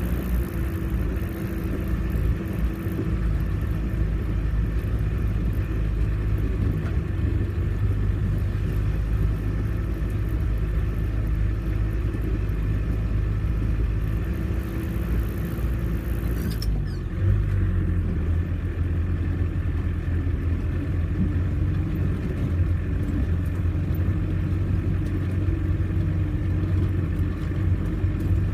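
Off-road 4x4's engine running steadily while driving, a low drone throughout. About two-thirds through, a high hiss cuts off and the low engine drone grows stronger.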